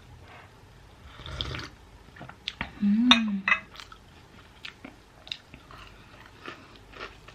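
A person chewing food, likely a freshly fried banana fritter, with scattered small mouth clicks and a short hummed 'mm' about three seconds in.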